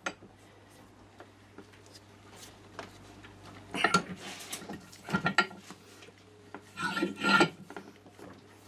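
Metal bench vise being worked and wound tight on the end of heavy-duty strimmer line to squash it flat: three short bursts of metallic scraping and clanking from the vise, about four, five and seven seconds in, with small ticks between.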